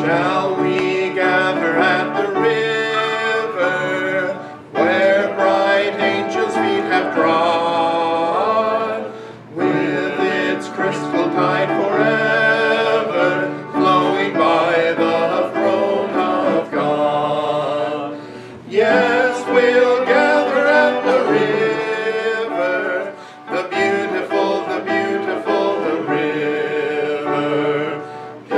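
A male vocal quartet singing in harmony, with piano accompaniment, in phrases of a few seconds each with short breaks between them.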